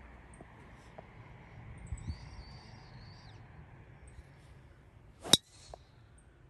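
Golf driver striking a ball off the tee: a single sharp crack about five seconds in. Before it, a bird gives a drawn-out whistled call about two seconds in.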